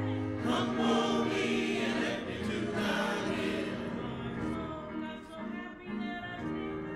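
Church choir singing a hymn with instrumental accompaniment, sustained voices over held low chords.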